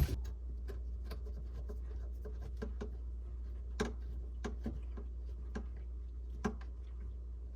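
Scattered light clicks and taps from plastic water line and filter fittings being handled and fitted together, over a steady low hum.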